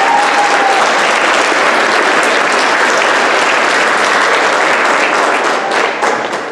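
Audience and cast applauding, with one voice holding a long cheer that ends about a second in; the applause thins out near the end.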